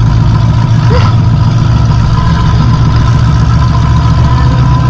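Demolition derby car's engine running steadily at low speed through short upright exhaust pipes cut through the hood, heard from inside the cockpit, with a thin steady whine over the deep rumble.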